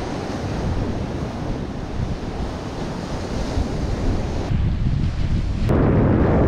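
Surf washing on a stony beach with wind buffeting the microphone; the wash thins briefly about four and a half seconds in, and a low wind rumble grows stronger near the end.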